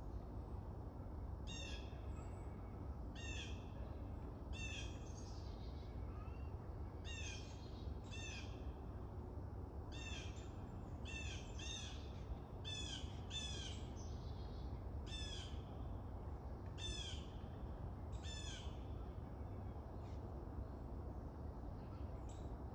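A bird calling over and over, one short call every second or two with a few gaps, over a steady low background rumble.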